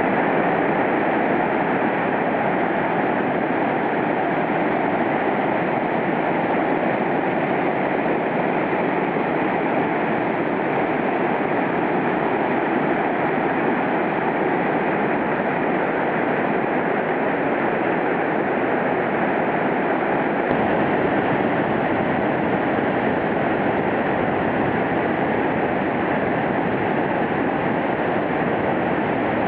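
Mountain river rushing: a loud, steady roar of fast water that does not change.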